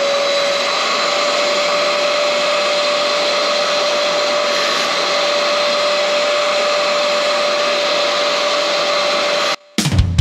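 A small portable carpet extractor's vacuum motor running steadily with a constant whine, sucking soapy water out of a wet car floor carpet. It cuts off suddenly near the end.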